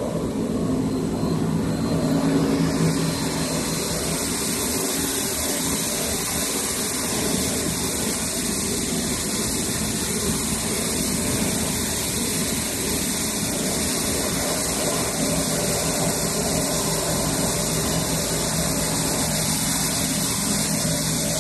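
SLA-series kraft paper slitter rewinder running, a steady mechanical whir and hiss. A lower hum fades about three seconds in, and the hiss grows higher and holds steady.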